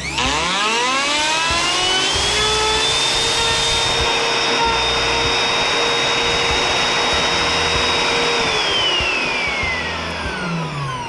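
Bosch plunge router switched on, its motor whine rising steeply as it spins up to full speed, then running steadily while cutting a slot in a bed board. About eight seconds in it is switched off and the whine falls away as the motor winds down.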